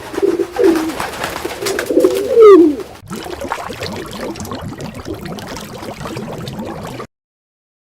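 A bird cooing in low, falling calls for about three seconds. It gives way abruptly to a busier run of short, low animal sounds that stops suddenly about seven seconds in.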